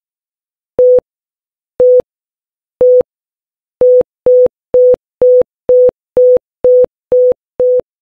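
Electronic beeps at a single pitch, like a busy signal, about one a second at first, then speeding up to about two a second from about four seconds in.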